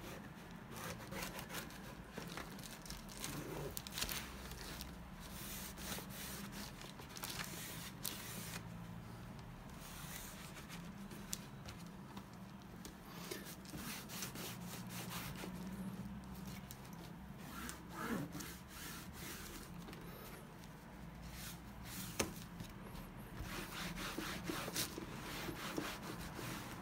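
A cloth wiping and rubbing over the leather of a briefcase, soft scuffing strokes with a few sharper clicks, as soapy foam and dirt are wiped off the cleaned leather.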